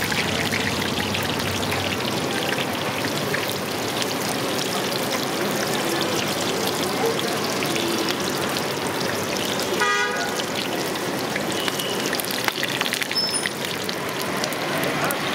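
Steady roadside traffic noise, with a vehicle horn tooting once, briefly, about ten seconds in.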